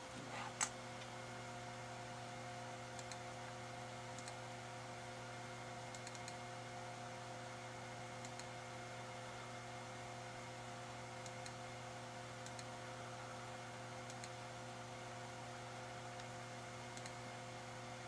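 Steady low electrical hum with faint mouse clicks every second or two. The sharpest click comes about half a second in.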